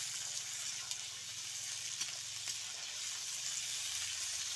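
Sliced onions and green chillies sizzling steadily as they fry in hot oil in a kadai, with scattered small crackles and pops.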